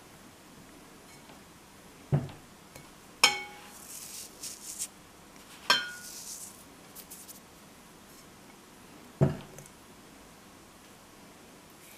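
Dishes handled on a kitchen worktop: two sharp, ringing clinks of a ceramic ramekin against a glass mixing bowl, with a dull knock of a dish set down before them and another near the end, and a soft rustle of semolina between the clinks.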